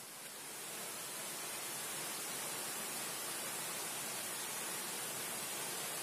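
Steady, even hiss with no distinct events, slightly quieter for a moment at the very start.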